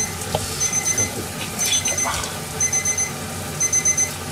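An electronic beeper alarm sounding in short groups of about four quick, high beeps, one group roughly every second.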